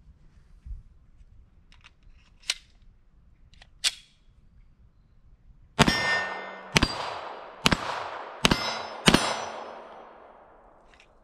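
A Polymer80 PF940V2 Glock 17-pattern pistol fires five shots in about three and a half seconds, slightly faster toward the end, each shot ringing out after it. The pistol is cycling every round without a stoppage after its slide rails were polished and a 13-pound recoil spring was fitted. A few small metallic handling clicks come before the shots.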